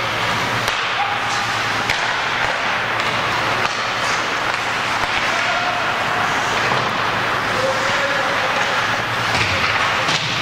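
Ice hockey game in a rink: a steady rush of noise from skates on the ice and the arena, with a few sharp clacks of sticks and puck and faint distant shouts.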